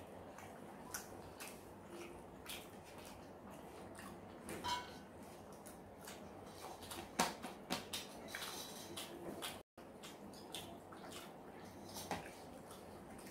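Close-up eating sounds: chewing and wet lip smacks as chicken leg and rice are eaten by hand, with small clicks of fingers and food against plastic plates, the sharpest about seven seconds in. The sound cuts out for an instant just under ten seconds in.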